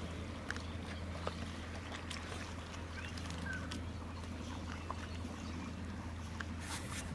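Hands squelching and pulling through thick wet pond mud as an eel is dug out, with scattered short wet clicks, over a steady low hum in the background.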